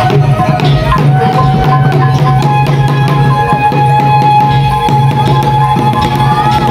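Khmer dance music: drums beating steadily under a melody line, with one long held note that comes in about two and a half seconds in.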